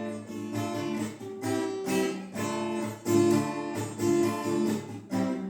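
Acoustic guitar strumming chords in a steady rhythm, without singing.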